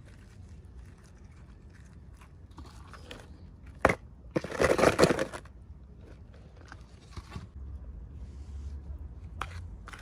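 Toy packaging being handled and opened: scattered small clicks and rustles, a sharp snap about four seconds in, then about a second of loud crinkling and crunching.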